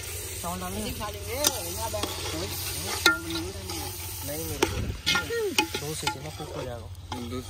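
Onion and tomato masala sizzling as it fries in oil in a pot. A spoon stirs it, scraping with a wavering squeak and clinking a few times against the pot.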